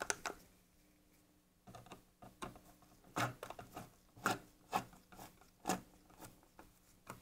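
Irregular small clicks and knocks of a screwdriver being worked on screws in a plastic instrument-cluster housing, starting about a second and a half in.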